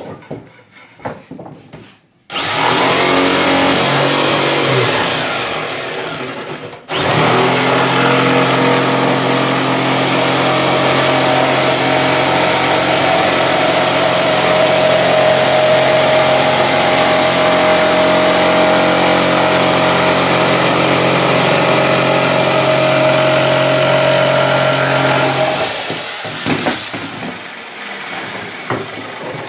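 Corded electric jigsaw cutting through a board. It starts about two seconds in, stops for a moment and restarts, then runs steadily with a constant motor hum until it cuts off near the end, followed by a few knocks as the board is handled.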